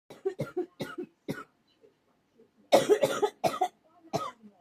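A person coughing repeatedly: a string of short coughs, then after a pause of about a second a louder fit of rapid coughs, and one more cough near the end.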